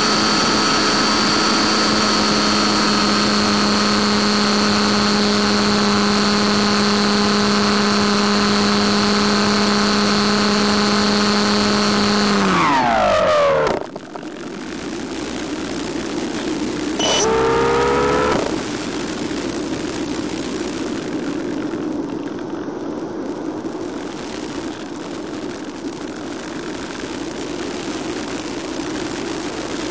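The electric motor and propeller of an FPV RC plane run at a steady high pitch, then wind down with a falling whine a little under halfway through as the motor is cut for a glide. A few seconds later there is one short burst of motor, and after it only a steady rush of air noise.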